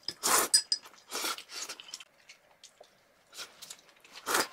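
Close-up eating noises at a meal: a handful of short scraping, rustling bursts of chewing and utensils on a dish. The loudest come near the start and just before the end, with a quiet stretch in the middle.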